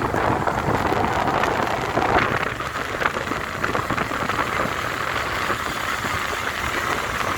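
Road vehicle noise: engines running and a steady rushing roar of traffic, with no horn sounding.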